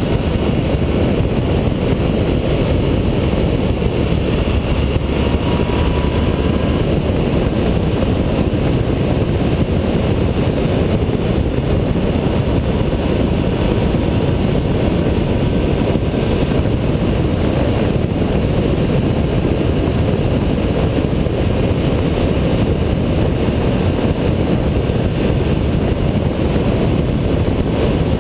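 Honda ST1300 motorcycle at steady road speed: a constant rush of wind on the fairing-mounted camera's microphone over the engine's drone and tyre noise.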